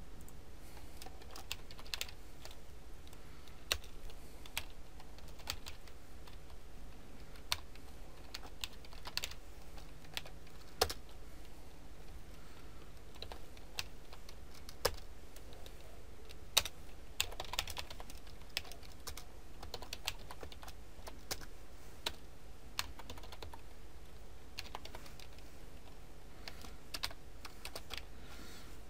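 Typing on a computer keyboard: scattered, irregular keystroke clicks over a faint steady low background hum.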